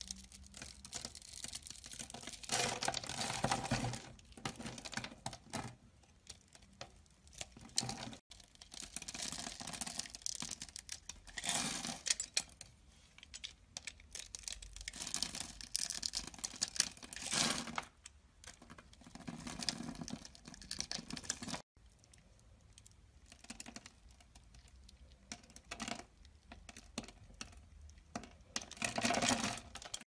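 Utility knife blade slicing and scraping through a bar of soap scored into a grid, the small soap cubes breaking off in crisp runs of rapid crackling clicks, with quieter pauses between strokes. The sound breaks off abruptly twice as one clip gives way to the next.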